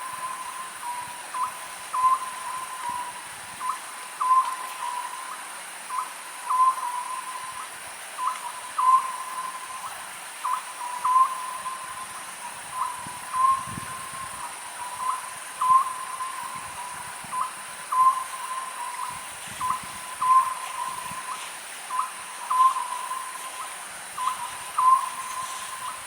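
Oriental scops owl calling over and over: a short, low, pitched hoot repeated evenly a little more than once a second in an unbroken series.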